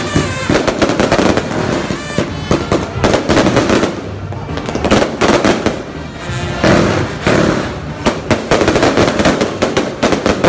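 Fireworks and firecrackers going off in a dense, irregular run of loud cracks and pops, with music playing underneath.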